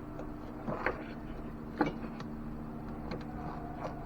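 A handful of faint plastic clicks and taps from fingers working a mass airflow sensor's electrical connector, the sharpest about two seconds in, over a steady low hum.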